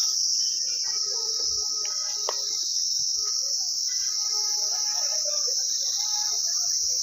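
A steady, high-pitched insect chorus shrilling without a break, the loudest sound throughout.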